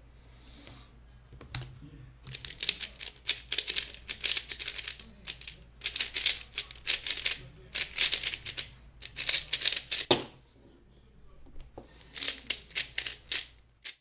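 A plastic 3x3 speedcube being turned very fast: rapid runs of clicking, clacking layer turns with brief pauses between them. There is a single thump about ten seconds in, then, after a short pause, another quick run of turns near the end.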